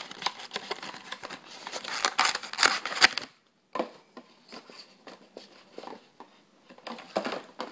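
Thin cardboard box being torn and pulled open, a dense run of crackling clicks for about three seconds. After a short pause come lighter, scattered clicks of a clear plastic card holder being handled.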